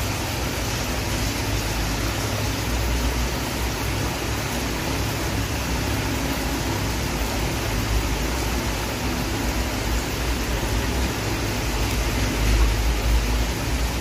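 Heavy rain pouring down, a steady, even hiss with a low rumble beneath it.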